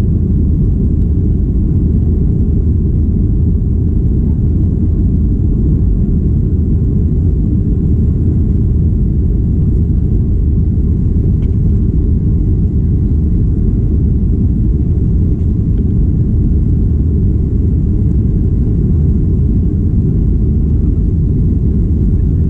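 Cabin noise inside a Boeing 737-800 airliner: a steady, loud low rumble of its CFM56-7B jet engines and airflow, with no change in pitch or level.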